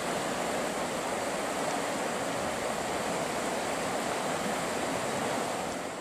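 Fast river current rushing through white-water rapids over rocks: a steady, even rushing noise.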